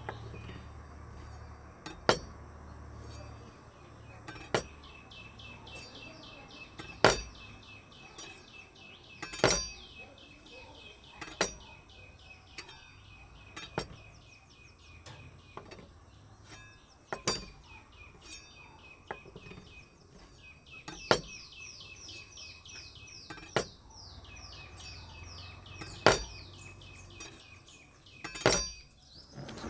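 Kitchen knife cutting tomatoes on a stainless steel plate, the blade striking the plate in sharp clinks every couple of seconds. A fast run of high chirps carries on behind for most of the time.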